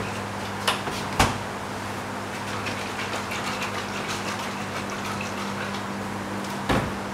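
A steady low hum under an even hiss, with a few sharp knocks: two about a second in and one near the end.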